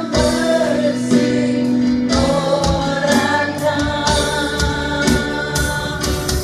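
Church worship music: several voices singing a hymn together over a live band, with a drum kit keeping a steady beat and cymbal crashes.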